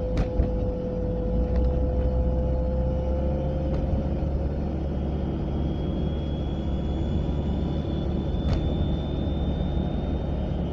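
Volvo 940 driving at about 30 to 40 mph, heard from inside the car: a low road and engine rumble under a steady whine that slowly rises in pitch, with a fainter high whistle above it. A sharp click comes just after the start and another about eight and a half seconds in. The whine is the kind of unexplained noise the owner places on the passenger side.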